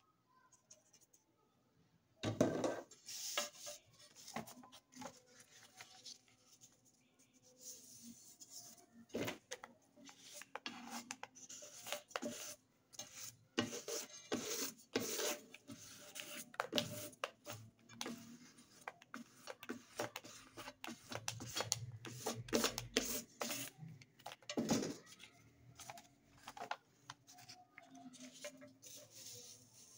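A sheet of paper folded over wet paint and rubbed and pressed flat by hand: repeated rustling, scraping strokes starting about two seconds in, then the paper opened near the end.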